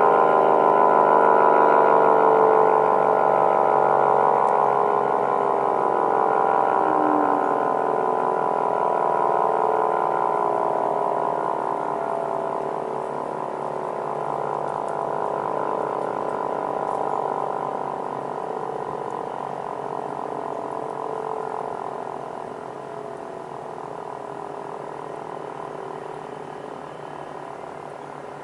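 ACA P-50 two-tone rotating warning siren winding down after its alert signal: its two chords of tones slide slowly lower in pitch and fade with a choppy throb as the rotor coasts toward a stop.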